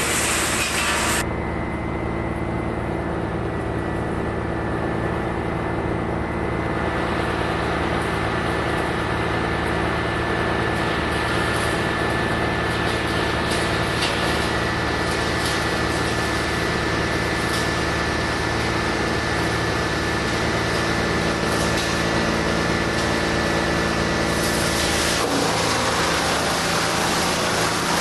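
Large engine-driven industrial wood chipper and grinder running steadily with a droning hum, with sharp cracks here and there as wood is fed through. The sound changes abruptly about a second in and again near the end.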